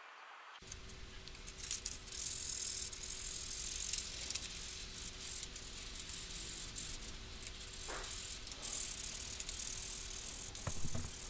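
Hand sanding of a carved olive-burl wooden fishing lure with a sanding sponge: fast back-and-forth strokes of abrasive on wood, a busy scratching. A few light knocks near the end.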